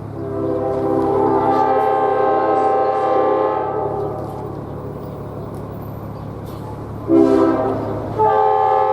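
A SEPTA train's K5LA five-chime air horn sounds one long chord, then a short toot about seven seconds in and another long blast just after it, over a steady low hum from the train.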